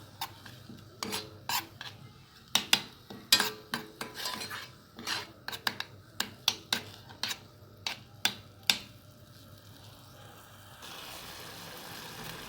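A spoon stirring a tomato-and-garlic sauce frying in oil in a pan, clinking and knocking against the pan about twice a second. The clinks stop about three-quarters of the way through, leaving a faint steady sizzle.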